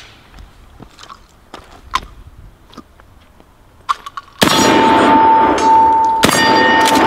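Two loud 12-gauge blasts from a DP-12 double-barrel pump shotgun firing 3-inch magnum shells, the first about four and a half seconds in and the second about two seconds later, after a few faint handling clicks. A steel target rings with a steady tone after the shots.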